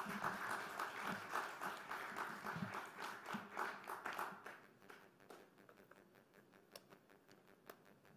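An audience applauding, fairly faint, the dense clapping thinning out about halfway through and leaving a few scattered claps.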